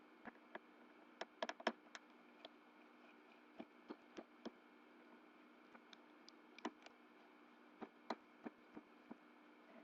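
Scattered light clicks and taps from handling a Samsung Wave 533 mobile phone and small tools while it is being taken apart, the loudest few close together about a second and a half in, over a faint steady hum.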